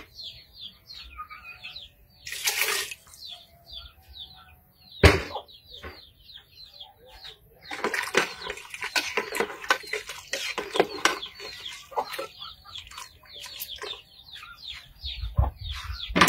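Liquid splashing in an aluminium stockpot of beef broth, a sharp knock about five seconds in, then a spell of stirring and clinking with a spoon from about eight to eleven seconds. Small birds chirp again and again throughout.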